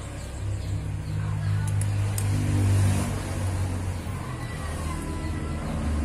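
A low engine hum that swells to its loudest about three seconds in, then eases off.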